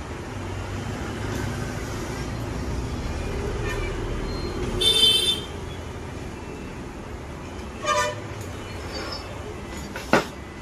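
Road traffic rumbling steadily, with a short vehicle-horn toot about five seconds in and a weaker one near eight seconds; a sharp click near the end.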